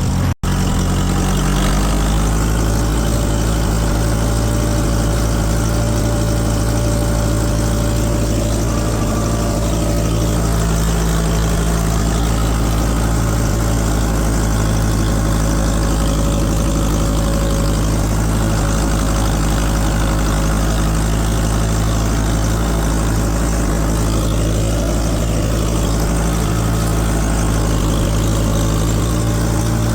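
Tractor engine running at a steady speed, a low, even drone with a constant pitch that starts just after a brief cut near the beginning.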